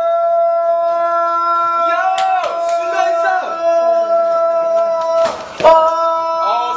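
A steady held note with evenly spaced overtones, unchanging in pitch, with voices calling out over it about two to three and a half seconds in. A short burst of noise briefly breaks the note about five and a half seconds in.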